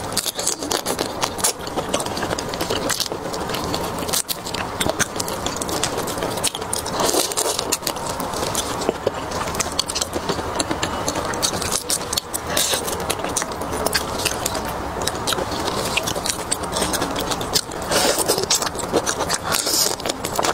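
Close-miked eating of marinated prawns: wet sucking and chewing at the prawn heads and shells, with a dense run of small crackles and clicks as the shells are bitten and pulled apart by hand. It gets a little louder about 18 seconds in.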